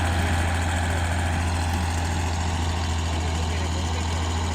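Komatsu D65-6 bulldozer's diesel engine idling steadily with a deep, even drone.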